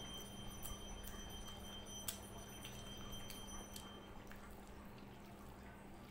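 A hand mixing rice and dal on a plate: soft wet squishes and short clicks, one sharper click about two seconds in. A faint steady high-pitched tone sounds underneath and stops about two thirds of the way through, over a low steady hum.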